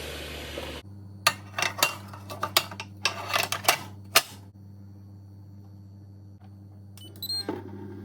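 Kitchenware clinking and clattering over a steady low hum, followed near the end by a brief electronic beep.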